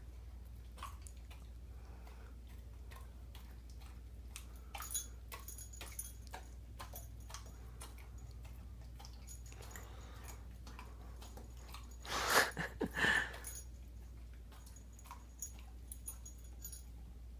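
Dog licking and smacking its lips over and over, making scattered wet clicks as it works peanut butter stuck to the roof of its mouth. Two louder breathy sounds come about twelve seconds in.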